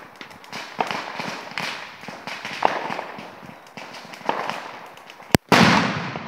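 Fireworks going off: scattered firecracker bangs and crackling, then a sharp crack about five seconds in, followed at once by a much louder blast that echoes and fades away.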